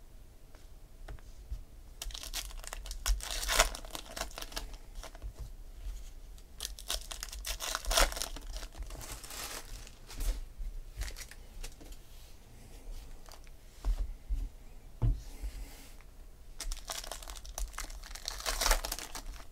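Thin 2016 Topps Gold Label baseball cards being handled and sorted into piles: card stock rustling and sliding against itself in three spells of a few seconds, with a few light taps between.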